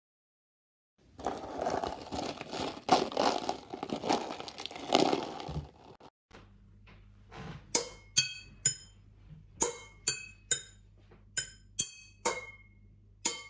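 A few seconds of dense rattling and clattering, then stainless-steel saucepans struck as home-made drums: sharp hits in a repeating rhythm, each ringing briefly with a metallic tone.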